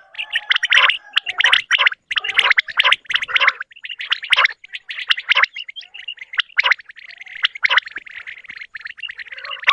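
Common quail (batair) calling in quick runs of short, high notes, several calls overlapping, running together into a near-continuous chatter in the second half. A recorded quail call used as a hunting lure.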